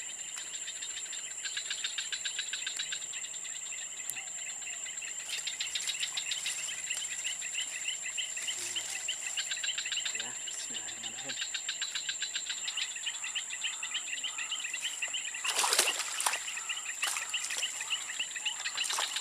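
Insects calling: rapid, evenly pulsed chirping trills over a steady high-pitched whine. About three-quarters through, a short, louder burst of noise with a few sharp strokes rises above them.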